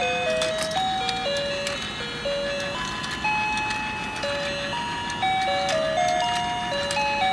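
Toy fishing game's electronic music chip playing a simple beeping tune, one note at a time. Scattered plastic clicks come from the turning fish pond.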